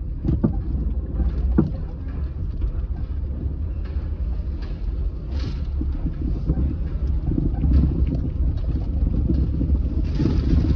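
Car driving, heard from inside the cabin: a steady low engine and road rumble, with a couple of sharp knocks about half a second and a second and a half in, and a louder hiss near the end.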